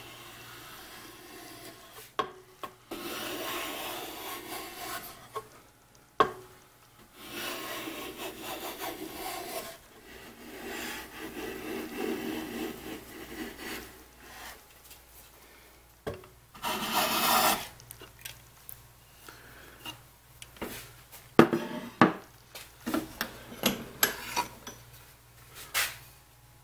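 Hand plane being pushed across the edge of a cherry board in a series of long rasping strokes, each shaving wood. Later come sharp knocks and taps of tools and wood being handled.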